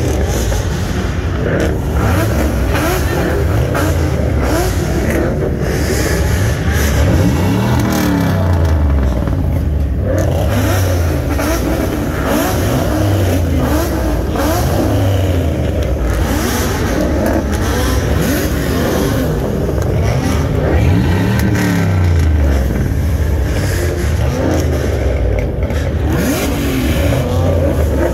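Several car engines, Camaros, revving over and over, their pitch rising and falling again and again over a steady din of other running engines.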